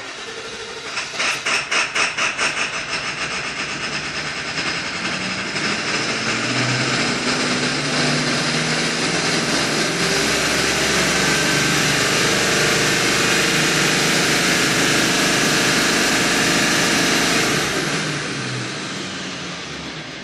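Ford 7.3L Power Stroke diesel being cranked on the starter, with rhythmic pulses over the first few seconds, then a long, loud, steady run of engine sound that falls away near the end. The truck is hard to start when hot.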